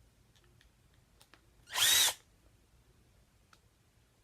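Matco power tool spinning briefly to back out a Torx hammer-case screw on an impact wrench: one burst of about half a second, about two seconds in, with a whine that rises and falls, and a few faint taps on either side.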